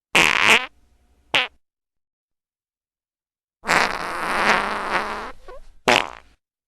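Fart sound effects played one after another, with dead silence between: a short fart, a very brief one about a second later, a long one lasting nearly two seconds starting about halfway through, and another short one near the end.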